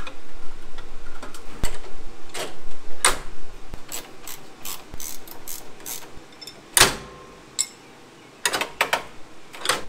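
Sharp metal clicks and clanks of a skid steer's steel-mesh engine grille being handled and set into its frame, with a louder clunk about two-thirds of the way through and a few more near the end.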